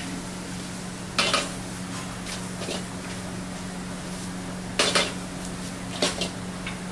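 Metal ladle scraping and clanking against an iron wok while stirring a thick masala, four strokes a second or more apart, the loudest about a second in and near five seconds. A steady low hum runs underneath.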